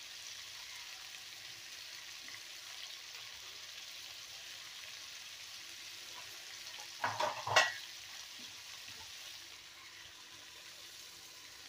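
Cubed pumpkin sizzling in oil in a kadai, a steady frying hiss. About seven seconds in, a steel lid clanks down onto the pan twice with a brief ring, and the sizzle carries on a little quieter under the lid.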